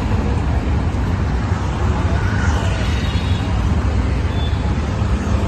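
A steady low rumble, even and unbroken, with faint voices beneath it.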